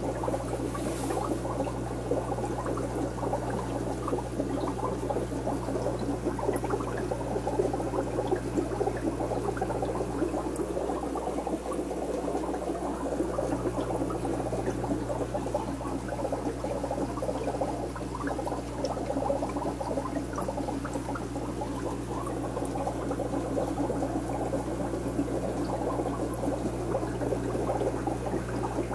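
Aquarium water bubbling and trickling from the tank's circulation, a steady dense crackle over a constant low electrical hum.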